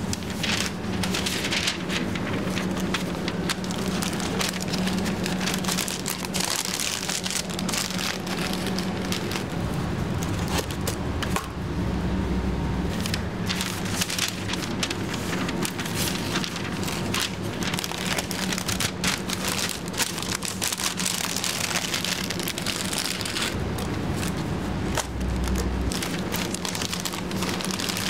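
Continuous crackling sizzle of burger patties frying on a flat-top griddle, mixed with the rustle and crinkle of greaseproof wrapping paper as a burger is wrapped by hand, over a steady low hum.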